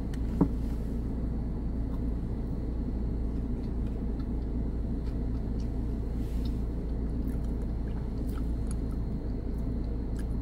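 Steady low rumble of a car running, heard from inside its cabin, with a few faint mouth clicks from chewing a frosted brownie.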